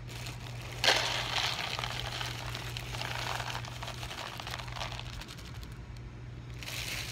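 Clear plastic bag of dry cat kibble crinkling as it is opened and tipped, with kibble poured into a plastic bowl. The crinkling starts suddenly about a second in and comes again near the end, over a steady low hum.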